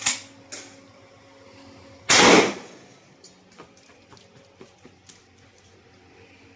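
A sharp click, then about two seconds later a single loud shotgun shot with a short ringing tail, followed by a few light mechanical clicks.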